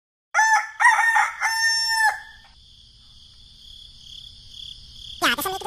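A rooster crowing once, a loud cock-a-doodle-doo in three parts, then a faint steady chirring of crickets. Near the end a different wavering, pitched sound begins.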